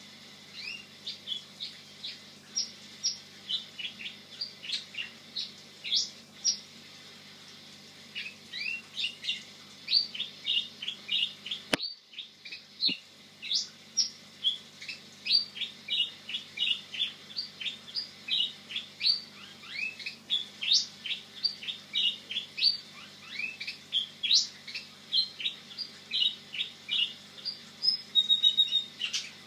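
Domestic canary singing: a long song of quick chirps and trills, with a short pause about seven seconds in and a fast, loud trill near the end.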